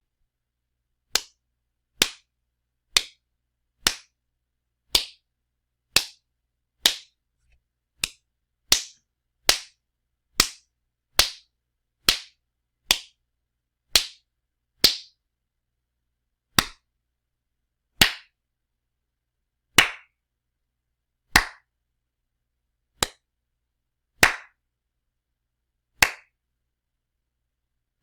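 A string of single, sharp slap sound effects with dead silence between them. They come about one a second at first and spread out to about one every one and a half seconds, and the later slaps are duller.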